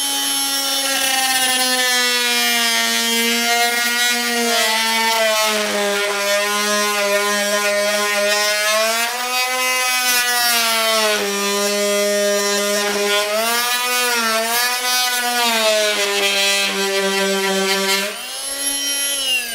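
A Fein oscillating multi-tool plunge-cutting through laminate floorboards, its motor buzzing steadily, the pitch sagging and recovering as the blade bites and eases. The pitch rises as the blade comes free near the end.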